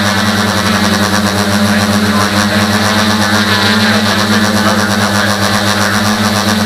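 Tricopter's electric motors and propellers buzzing steadily in flight, heard up close from on board, with a constant pitch.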